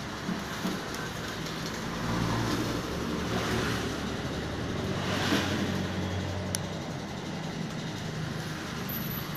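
Steady background road-traffic noise with a low engine rumble that swells for a few seconds in the middle, and a single click a little past halfway.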